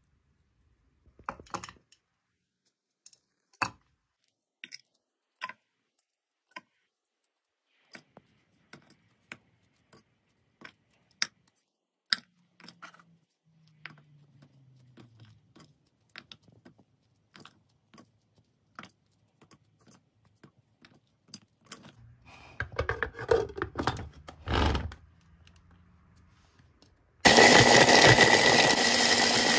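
Oatmeal cookies being broken by hand into a plastic food-chopper bowl, with scattered crisp cracks and crumbling. About three seconds before the end, an electric food chopper starts suddenly and runs steadily, grinding the cookies with nuts, raisins and chocolate; this is the loudest sound.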